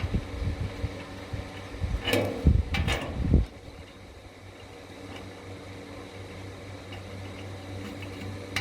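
Handling of a bolt, washer and nut being fitted to a metal beam connector, with two light metal clinks a few seconds in. After that a steady low hum.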